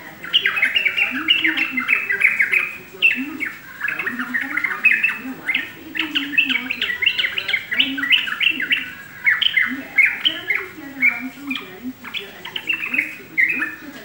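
Caged yellow-vented bulbul (trucukan) singing a fast, unbroken babble of short chirping notes.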